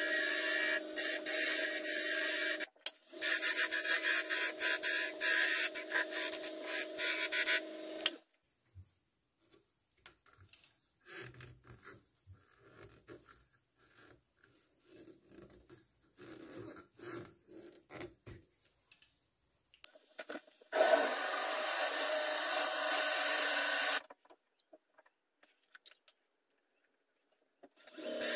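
Wood lathe spinning a small wooden spindle while a hand-held turning tool cuts it: a steady hum under loud scraping and hissing, in two passes with a short break about three seconds in. It stops about eight seconds in, giving way to faint handling sounds. A three-second burst of scraping comes a little after twenty seconds, and the lathe cutting starts again at the very end.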